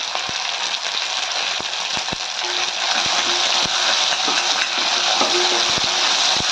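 Shallots and chopped tomato sizzling in sesame oil in a kadai, with a spoon clicking and scraping against the pan as it is stirred. The sizzle gets louder about halfway through.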